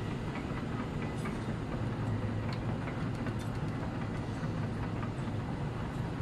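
Steady low rumbling background noise with a hum underneath and a few faint ticks.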